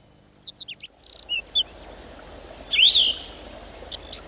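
Songbirds chirping and singing: a run of quick falling chirps at the start, scattered twitters, then a louder whistled phrase about three seconds in.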